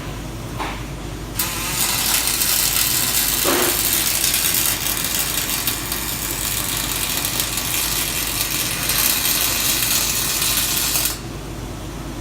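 Aluminium welding robot's arc striking about a second and a half in and running as a loud, steady hiss for about ten seconds, then cutting off suddenly, over a steady low machine hum.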